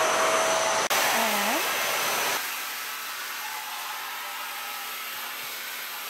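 Dyson Cinetic DC78 canister vacuum running, just switched on: a loud, steady rushing whine. About two and a half seconds in it drops to a quieter, even hiss with a faint hum.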